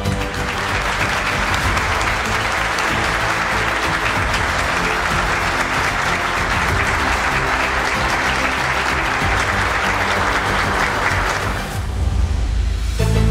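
An audience applauding, an even wash of clapping that stops about twelve seconds in, when music comes back.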